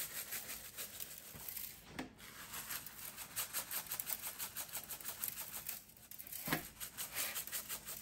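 A shaker jar of garlic pepper seasoning shaken over a beef roast, its granules rattling in quick regular strokes of about four a second. The shaking breaks off twice, about two seconds in and about six seconds in, each time with a short knock, the one past six seconds the loudest.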